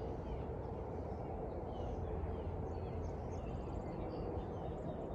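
Outdoor lakeside ambience: a steady low rumble with faint, scattered bird chirps and a brief rapid bird trill near the middle.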